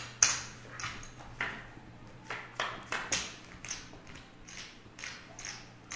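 Poker chips clicking against each other on the table, light sharp taps about two or three a second, over a faint steady low hum.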